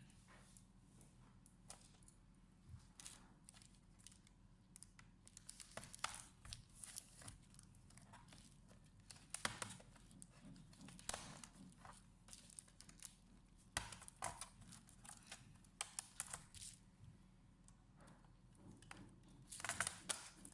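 Faint crinkling and rustling with scattered small clicks, in irregular bursts, as hands handle small computer parts and their wrapping.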